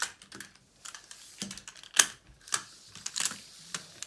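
Plastic magnetic building tiles clicking and clacking as they are handled and snapped together: a string of irregular sharp clicks, the loudest about two seconds in.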